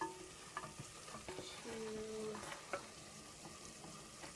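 Onions sizzling as they fry in a pan, with a spoon clicking and scraping against the pan as they are stirred. A brief held hum sounds about two seconds in.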